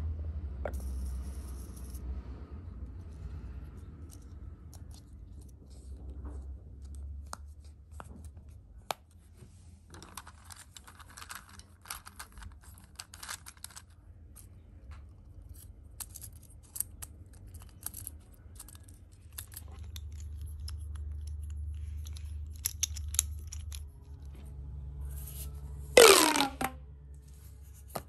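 Plastic fidget toys handled on a wooden table: scattered light clicks, taps and rustling, with a low rumble at times. Near the end, a loud, brief sweep falling steeply in pitch as a plastic pop tube is pulled.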